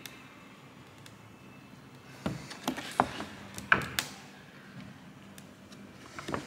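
A flat-bladed screwdriver prying the lens clips of a plastic Nissan NP300 headlight housing: a run of sharp plastic clicks and knocks about two to four seconds in, and another near the end.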